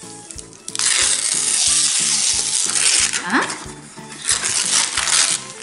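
Gift-wrapping paper being torn and ripped off a box, in two long rustling, tearing spells, over soft background music with a steady beat.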